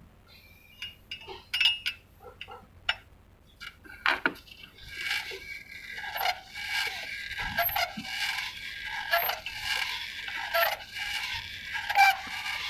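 Metal clinks and knocks of hand tools and parts being handled, sparse at first and busier from about halfway.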